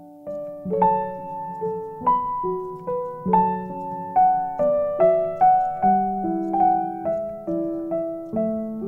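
Background piano music: single notes struck about twice a second, each ringing and fading before the next.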